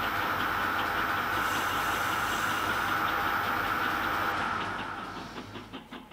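Metal lathe running steadily while a tool works a graphite-filled PTFE piston-ring blank, with a steady whine. It fades away near the end, leaving a quieter rhythmic scraping of about three strokes a second.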